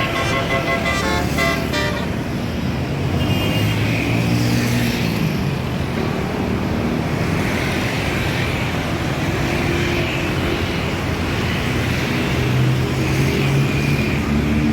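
A multi-note 'telolet' bus horn plays a quick run of notes, which stops about two seconds in. A large vehicle engine then runs amid road traffic noise.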